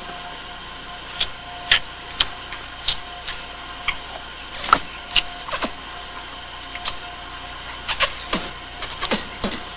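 Exaggerated comic slurping of soup from a spoon: a dozen or so short, sharp sucks at uneven intervals, many falling quickly in pitch, over a faint steady hum.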